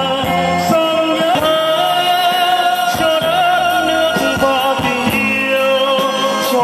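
A man singing into a microphone, holding long notes with a slight vibrato, over a steady beat and backing from an electronic keyboard and a guitar.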